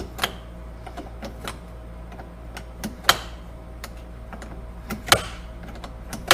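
Hand tools clicking and knocking against metal as the battery's negative cable is unhooked, a few sharp clicks some seconds apart, the loudest about three and five seconds in, over a steady low hum.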